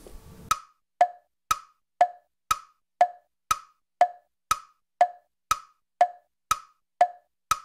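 Steady wood-block tick-tock, about two clicks a second alternating between a higher and a lower note, with dead silence between the clicks: a ticking sound effect added in editing.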